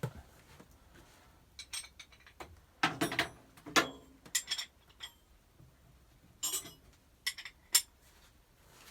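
Metal spanners clinking and knocking together as they are sorted through to find the right size, with short knocks and brief high rings scattered over several seconds.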